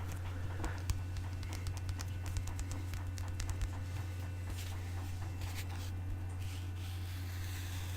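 Light ASMR tapping and scratching: a quick run of small clicks and scrapes in the first few seconds, thinning out afterwards, over a steady low hum.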